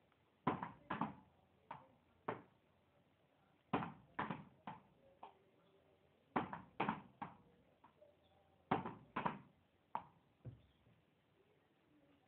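A ball bouncing and being struck in a small room, in four quick runs of three or four sharp knocks about half a second apart, the first knocks of each run the loudest, the runs repeating every two and a half to three seconds.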